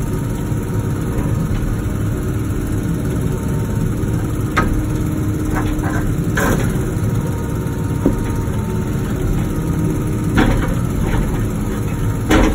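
Wacker Neuson ET145 excavator's diesel engine running steadily, with several sharp knocks from the machine working rock.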